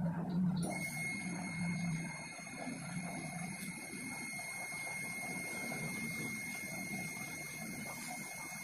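Quiet room noise with a faint steady high-pitched electronic whine that switches on suddenly about a second in.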